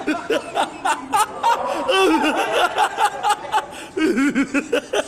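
People laughing hard in repeated bursts, mixed with shouted voices.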